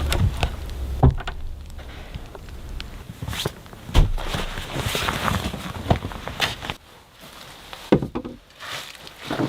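Footsteps in snow: a few slow, unevenly spaced steps.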